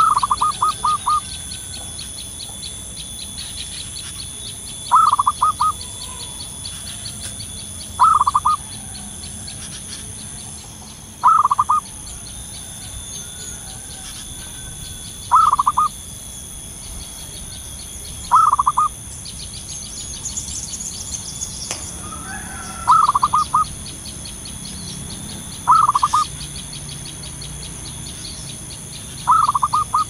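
Zebra dove (perkutut) singing its soft staccato cooing song. About nine short phrases of rapid repeated notes come roughly every three seconds, with longer trills at the start and near the end. A steady high-pitched pulsing runs underneath.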